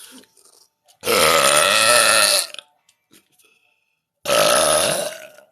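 A woman burping loudly on purpose, twice: a long burp of about a second and a half, then after a short pause a second one of about a second.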